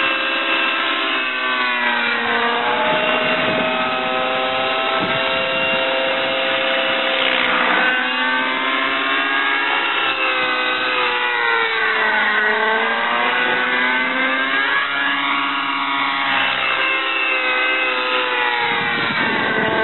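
Align T-Rex 600 nitro RC helicopter in flight: its two-stroke glow engine and rotor head running with a steady, loud whine whose pitch sweeps up and down several times as it flies about.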